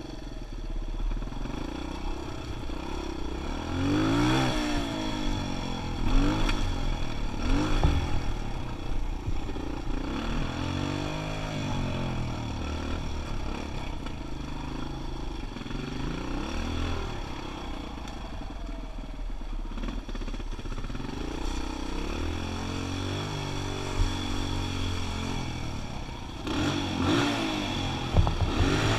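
Kawasaki KLX 125's four-stroke single-cylinder engine running as the dirt bike is ridden, its pitch rising and falling again and again as the throttle opens and closes.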